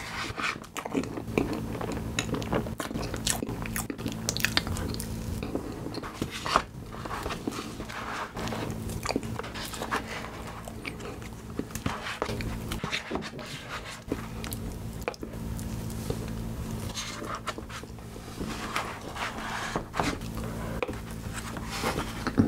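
Close-miked eating of soft tiramisu cake: wet lip smacks and chewing, with a wooden spoon scraping and knocking in a plastic container. A steady low hum runs underneath.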